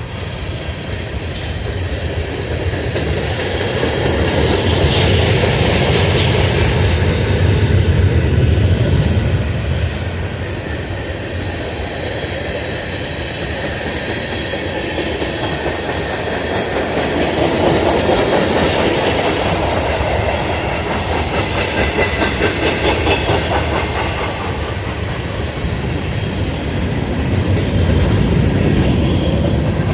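Freight train cars rolling past at close range, the wheels clacking over the rail joints in a steady noisy rumble that swells and eases several times.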